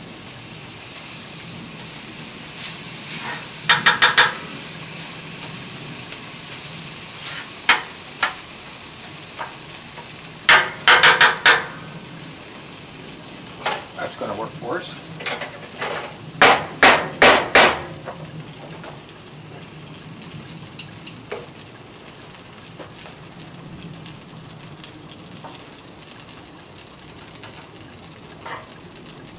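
Black beans sizzling on a hot Blackstone steel griddle while a metal masher pounds them, with quick runs of sharp metal clacks against the steel about four, eleven and seventeen seconds in. The beans are being mashed into refried beans.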